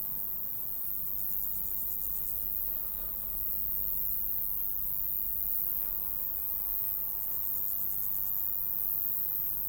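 Grasshoppers stridulating: a continuous high-pitched insect trill, with two rapid pulsed chirping bursts of about a second and a half each, one about a second in and one about seven seconds in.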